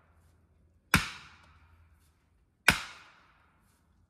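Two sharp strikes of a sledgehammer driving a fence post, about a second and a half apart, each dying away over about half a second.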